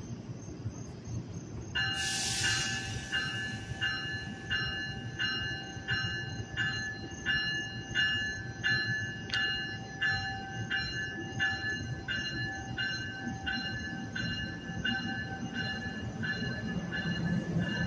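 NJ Transit multilevel commuter train at a station platform. A short sharp hiss of air sounds about two seconds in, then the train's bell rings steadily, about one and a half strokes a second, over a low rumble until shortly before the end, as the train starts to pull out.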